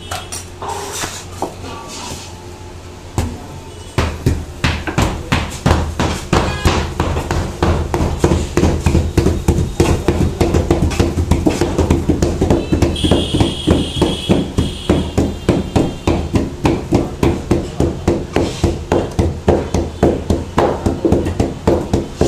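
A mallet pounding a slab of sesame-and-jaggery gazak flat, a stage in making gazak. A few scattered knocks come first; then, about four seconds in, fast, regular blows start at about four a second and keep going.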